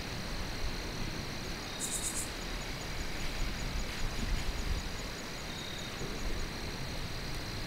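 Insects, crickets among them, chirping in fast, even pulses over a steady high drone, with a brief, very high buzzy trill about two seconds in, over a low rumble.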